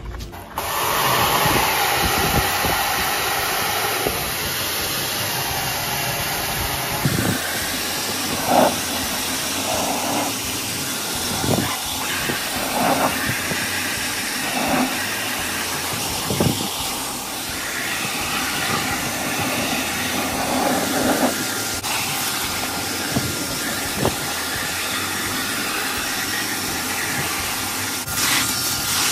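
Water jet spraying hard onto a washing machine drum, a steady loud hiss, with a few scattered knocks.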